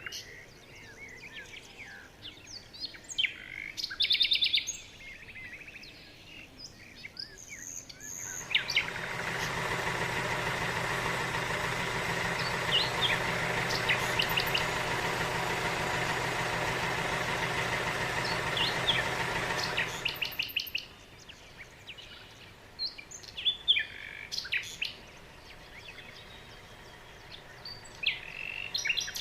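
Birds chirping, scattered short calls throughout. From about a third of the way in to about two-thirds in, a steady rushing noise with a low hum runs under the birds, then cuts off suddenly.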